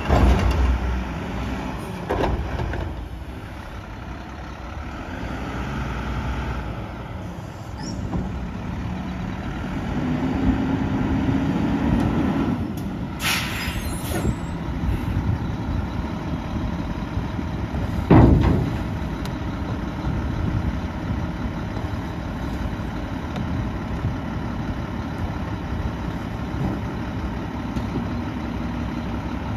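Mack LEU garbage truck's diesel engine running as it pulls up and stops, with a thump at the start and a lighter knock a couple of seconds later. The engine rises in pitch for a moment, then a short air-brake hiss sounds about halfway through. A loud bang comes a few seconds after that, and the engine idles steadily to the end.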